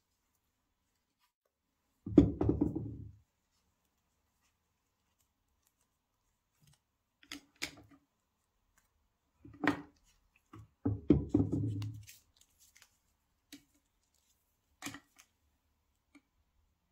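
Product packaging being handled and opened: two short rough scraping rustles, one about two seconds in and one around eleven seconds, with scattered sharp clicks and taps between them.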